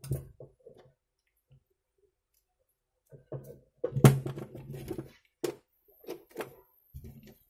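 Clicks and knocks of coaxial BNC and DC power connectors being handled and pushed together on a DVR. The sharpest click comes about four seconds in, followed by several lighter clicks.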